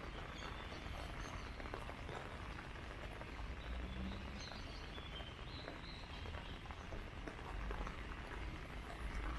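Light rain falling in a steady hiss, with birds chirping a few times around the middle and footsteps on the wet path.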